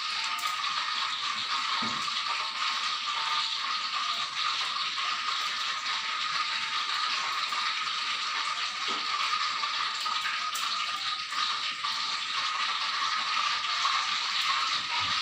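A steady hiss that does not change, with a few faint soft sounds of eating by hand now and then.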